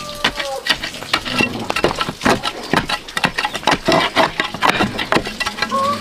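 A run of sharp knocks and taps at irregular spacing, several a second.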